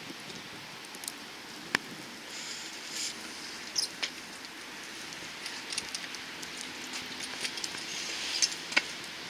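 Falling wet snow outdoors: a steady hiss with scattered small ticks and taps, the sharpest a little under two seconds in and again near the end.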